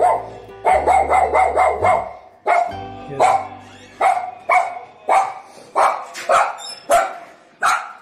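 Pet dog barking at its returning owner, who takes it as the dog being angry with him for going away. The barks come in two quick strings in the first two seconds, then one at a time about twice a second.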